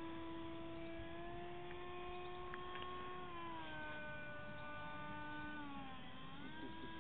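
Electric motor and propeller of a radio-controlled model airplane whining in flight, a faint steady tone that drops in pitch about three seconds in, dips again near the end and briefly rises before falling away.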